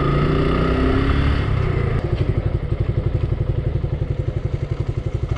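Motorcycle engine running, its pitch rising gently for the first second or so, then settling about two seconds in into a steady, evenly pulsing beat.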